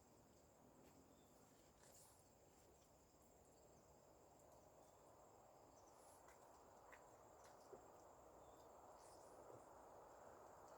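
Near silence: faint outdoor ambience with the steady, high-pitched chirring of crickets.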